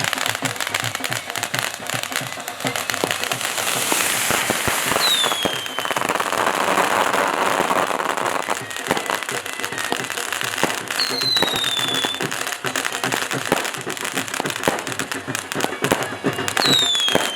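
Fireworks crackling and popping in a dense, continuous barrage. A short falling whistle sounds three times over it.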